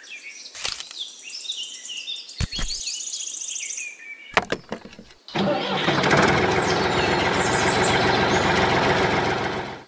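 Birds chirping with a few sharp clicks, then about five seconds in a vehicle engine sound starts and runs steadily until it fades near the end. It is an added engine sound effect for the toy trailer.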